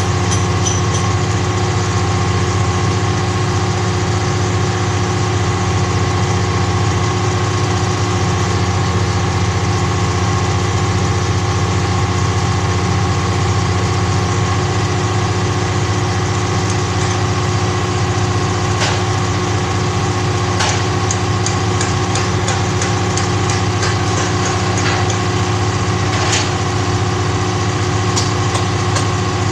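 Truck-mounted crane's engine running steadily to drive the crane, with scattered light knocks and clicks in the second half.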